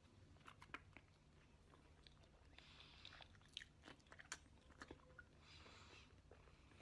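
Faint chewing with scattered small mouth clicks and soft crunches, a person eating a brittle snack close to the microphone.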